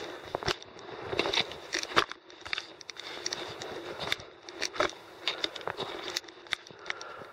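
Irregular crunching steps and sharp clicks of a climber's boots and gear on rocky mountain ground, one or two a second.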